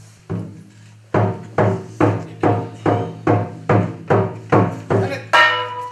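Drum music: a drum struck in a steady beat of about two to three strokes a second, each stroke ringing with a low tone. It ends with one louder, brighter ringing stroke near the end.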